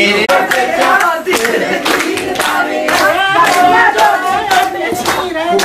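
A group of women singing Punjabi gidha boliyan together, with steady rhythmic hand-clapping about two claps a second keeping the beat.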